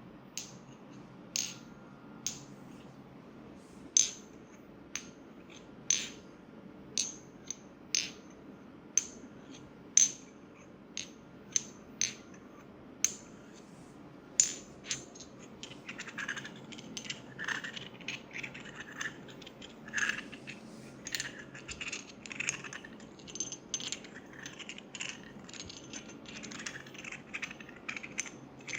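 Sharp clicks with a short metallic ring, about one a second. About halfway through they give way to faster, scratchier clicking and scraping.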